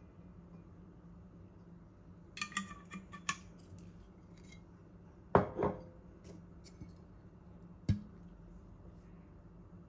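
Condiment bottles being handled on a kitchen counter beside a stainless steel mixing bowl. A quick run of light clicks comes about two and a half seconds in, two sharp knocks follow a little after five seconds as a bottle is set down, and one more sharp click comes near the end.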